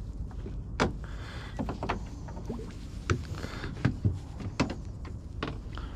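Irregular knocks and clicks of fish and tackle being handled on a small boat, about eight in six seconds, over a low steady rumble.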